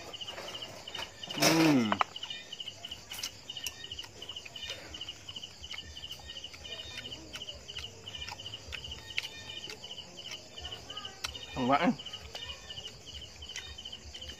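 Crickets chirping in a steady high pulsing chorus. Twice, about a second and a half in and near twelve seconds, a man's short loud voice sound falls in pitch.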